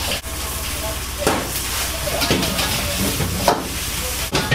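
Stir-frying in a steel wok over a gas burner: a steady sizzle and hiss over a low hum, with the metal ladle knocking and scraping against the wok about once a second.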